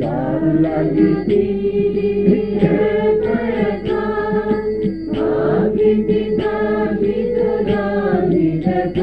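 Devotional kirtan: voices chanting a melodic line over a steady held drone, with a brief noisy rush about five seconds in.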